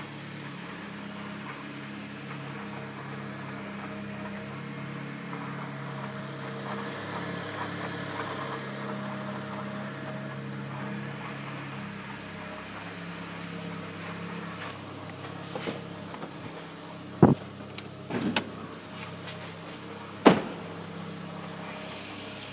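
2009 Mitsubishi Lancer Ralliart's engine idling steadily, with a few sharp, irregular knocks in the later part, the loudest about three quarters of the way through. The owner takes the intermittent knock for abnormal; the dealer's techs put it down to the SST transmission's clutches chattering.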